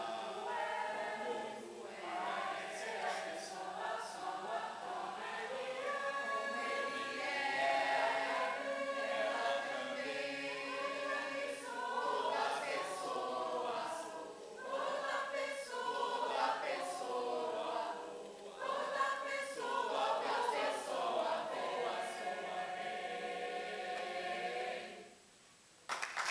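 A choir singing in several parts, with sustained, shifting chords. The singing stops near the end.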